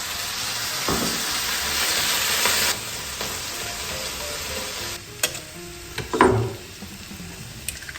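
Potatoes and onions sizzling in a frying pan with a little water just added: a loud hiss that drops off sharply a little under three seconds in, then a quieter sizzle. A few knocks of a utensil against the pan come around five to six seconds in.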